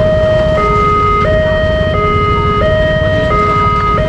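Railway level-crossing alarm on a LEN signal pole sounding its electronic two-tone warning, a high and a low note taking turns about every two-thirds of a second. It warns of an approaching train.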